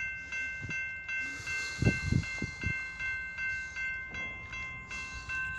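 Railroad grade-crossing warning bell ringing steadily, about three strokes a second, while the crossing gates are down. A few low thumps come about two seconds in.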